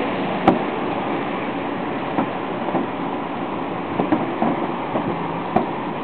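Distant fireworks display: a series of sharp bangs from bursting shells, the sharpest about half a second in, over a steady rumble.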